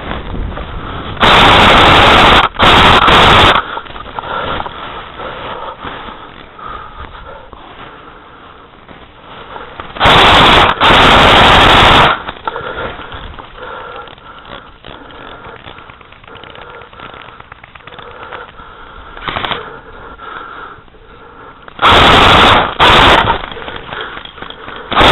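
Airsoft gun firing in short full-auto bursts right at the microphone, each burst about a second long and very loud. The bursts come in three pairs, roughly ten seconds apart.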